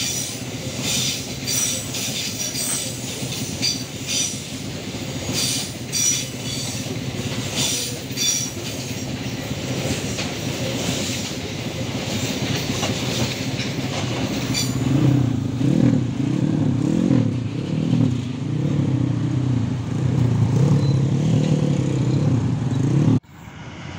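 Fully loaded coal wagons rolling past at a level crossing, with wheels clicking over the rail joints at a steady beat for the first half and a running rumble under it. In the last several seconds, rising and falling motorcycle engines rev as riders set off over the tracks.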